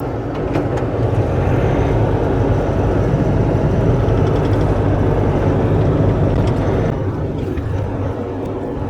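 Bobcat E42 mini excavator's diesel engine running steadily with a deep, even drone, with a few faint clicks over it; it eases off slightly about seven seconds in.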